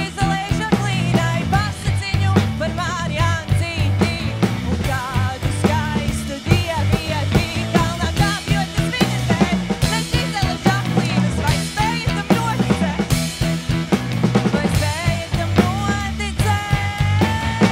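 Rock band playing a song from a rock opera: a steady drum kit and bass with a wavering lead melody line. A long held note comes in near the end.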